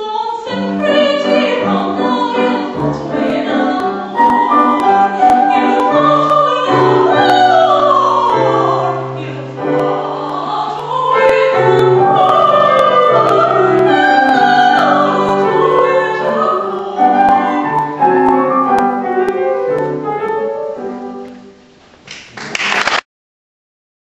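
A woman singing an operatic aria with piano accompaniment. Near the end the music drops away, a brief harsh burst of noise follows, and then the sound cuts off abruptly.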